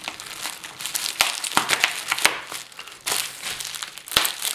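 Plastic mailer bag and wrapping crinkling as they are handled and pulled open, in quick, irregular crackles.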